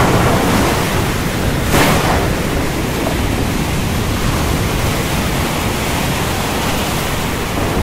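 Stormy sea: a steady rush of heavy waves, with a louder surge about two seconds in. It starts and cuts off abruptly.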